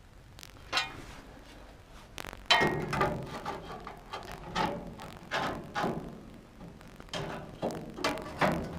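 Irregular clunks and knocks of a steel body panel being handled and offered up to a classic Mini's body shell, about ten sharp metal knocks, each with a short ring.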